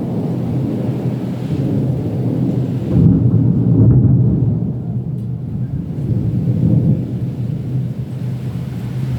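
Thunder rumbling over rain, swelling about three seconds in and then slowly dying down.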